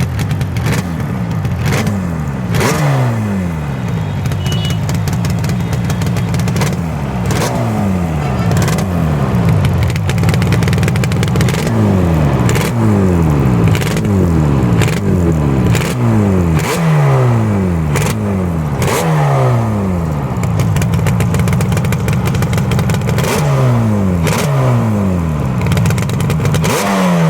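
Yamaha RD350's two-stroke parallel-twin engine blipped over and over through its exhaust, each rev falling back towards idle, with sharp cracks now and then.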